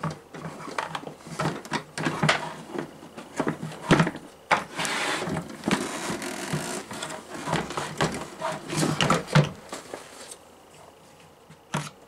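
Plastic housing parts of a Hunter 32500 evaporative humidifier being handled and fitted together: a run of clicks, knocks and rattles, with about a second of sliding noise around five seconds in. It goes quieter after about ten seconds, with one knock near the end.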